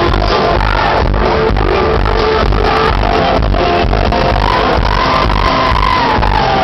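A live pop band playing electronic dance-pop music loud through an arena PA, with a steady heavy bass beat and a held melody line.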